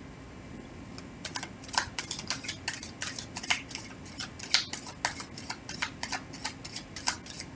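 A deck of tarot cards being shuffled by hand: a quick, steady run of crisp card flicks and slaps, several a second, starting about a second in.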